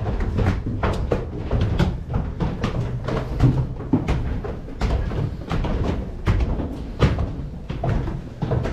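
Footsteps climbing a wooden staircase: a steady run of knocking footfalls, about two to three a second.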